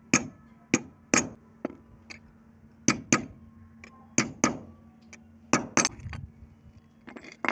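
A hammer tapping a small steel rod held as a punch on a steel sewing machine needle plate, knocking its sunken centre back up level. About ten sharp metallic taps, irregular and often in pairs, stop a little before the end.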